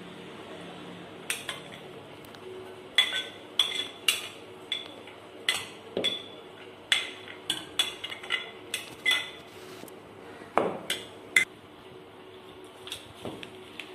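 Spoon scraping and clinking against plates and a bowl as chopped fruit is scooped into the bowl and stirred: a long irregular run of sharp clinks, each ringing briefly, thinning out to a few soft taps near the end.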